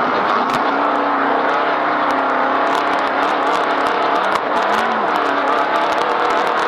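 Off-road race vehicle's engine running steadily at speed, heard from inside the vehicle, with many short rattles and knocks from the chassis over rough ground.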